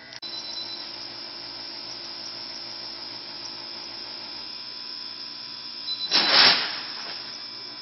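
Steady electrical hum and hiss, with a brief loud rustle of noise about six seconds in.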